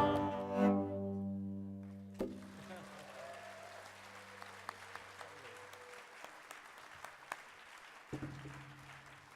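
The final notes of a tabla and cello duo ring out and die away over about two seconds. Quiet audience applause follows.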